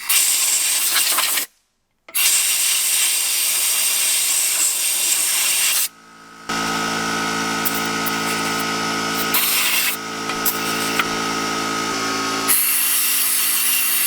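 Power drill scouring out the inside of a metal bore to clear out oxide: a harsh scraping hiss, broken by a short cut near the start, then after about six seconds a steady whining motor hum.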